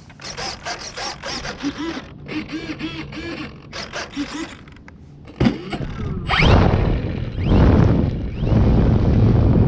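Electric RC plane's motor and propeller running up to full throttle in three surges, starting about six seconds in, after several seconds of light clicks and rustles. The plane lacks the power to take off from the wet grass, and the propeller chews through it.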